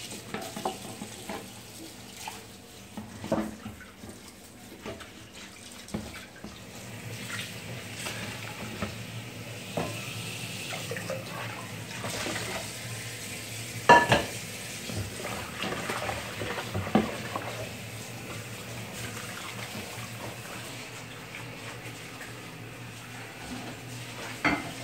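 Kitchen work: a steady hiss of running or bubbling liquid under scattered clinks of bowls, pots and utensils. A sharp clank comes about halfway through, with a couple of smaller knocks later.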